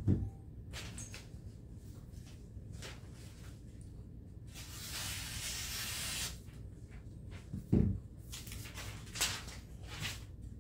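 Freshly sharpened Gerber mini cleaver making a test cut: a hiss of the blade slicing through lasts almost two seconds about halfway. Low knocks of the knife being handled come at the start and just before 8 seconds, with a few light clicks after.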